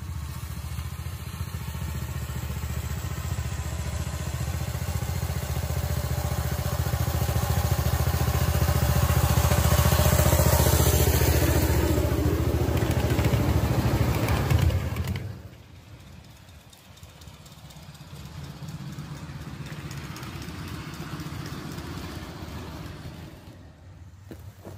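Running noise of a ride-on miniature train moving along its track, a steady low rumble that builds and then drops off sharply about fifteen seconds in, leaving a quieter run.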